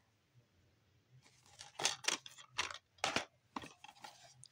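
Hard plastic DVD cases handled by gloved hands: irregular clicks and rattles as the cases are picked up and turned over, starting about a second in.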